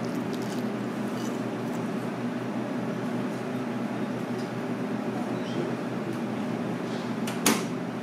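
Steady low hum of a dining room with a few faint ticks, and one sharp clink of a metal fork against the plate about seven and a half seconds in.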